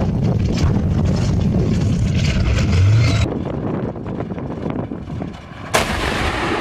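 A steady low rumble that stops abruptly a little after three seconds, then a single sharp blast from a tank's main gun firing near the end.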